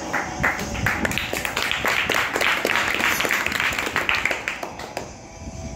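A small group of people clapping, with many quick, uneven claps that grow denser in the middle and die away about five seconds in.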